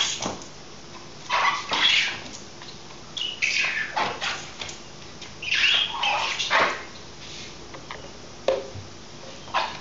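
Drying towel wiping over a wet car's surface in irregular strokes, with short high squeaks as it drags on the paint and glass.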